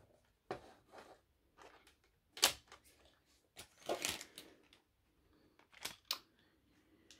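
Scattered handling noises: short clicks, taps and rustles of a model-train power supply and its packaging being picked up and set down, the loudest knock about two and a half seconds in.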